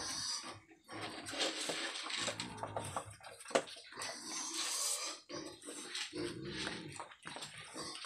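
A young pig snuffling and grunting as it eats dry feed off a concrete pen floor, with one sharp knock about halfway through.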